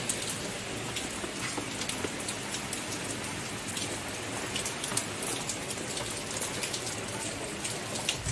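Heavy rain falling steadily on a paved courtyard, with many sharp drops and drips spattering close by.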